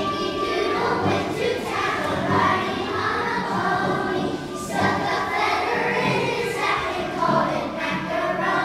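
A choir of young children singing together over instrumental accompaniment.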